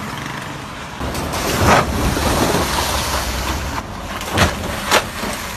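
Traffic driving over a wet, potholed road: tyres hissing and splashing through standing water, loudest a little under two seconds in. Near the end come two sharp thumps about half a second apart, wheels hitting the potholes.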